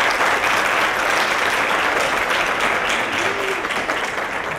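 Audience applause, a roomful of people clapping together, easing off slightly toward the end.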